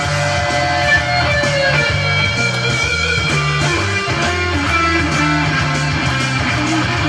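Gretsch G2622T Streamliner semi-hollow-body electric guitar played in a demo, a melody of single notes and short phrases over a low bass line.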